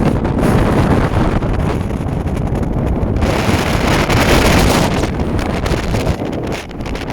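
Strong wind buffeting the microphone with a loud, rumbling rush. About three seconds in, a louder, hissing rush swells for under two seconds, then eases.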